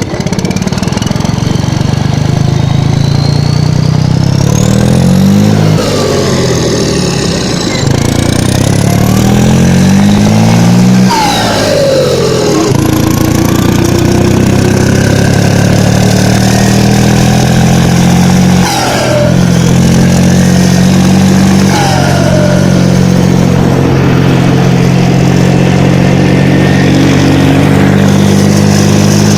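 Valmet 565 tractor's turbocharged diesel engine running, revved up twice in the first half and otherwise held steady. A turbo whistle rises with the revs and then falls away in pitch, heard about four times.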